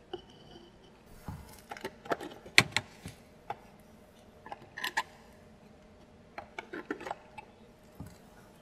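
Light clicks and clinks of miniature ceramic bowls and dishes being picked up and set down on wood, in scattered clusters, the loudest about two and a half seconds in.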